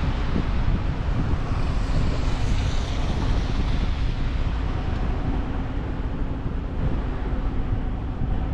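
Wind rumbling on the microphone over steady traffic noise, with a brief rise in hiss about two to three seconds in.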